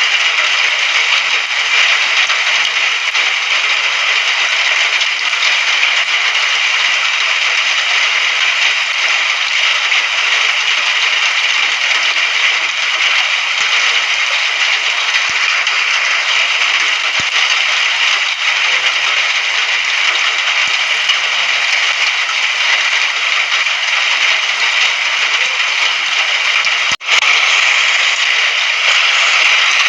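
Recorded rain falling steadily, a dense, even patter with a crackly edge. It drops out for a split second near the end.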